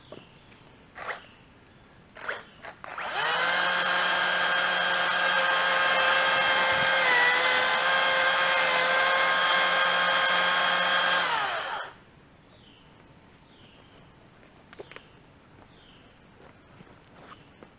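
Makita battery-powered chainsaw, its electric motor starting up about three seconds in, running at a steady high whine for about nine seconds while cutting into a small dead tree, dipping briefly in pitch midway under load, then winding down and stopping. Faint clicks and short chirps before and after.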